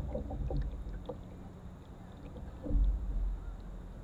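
Canoe moving on a calm river: soft paddle and water sounds over a steady low rumble, with one louder low bump about three seconds in.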